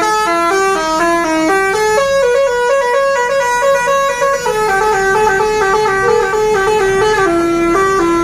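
Bus telolet horn playing a long, unbroken tune: several horn tones sounding together, stepping quickly up and down in pitch note by note, loud.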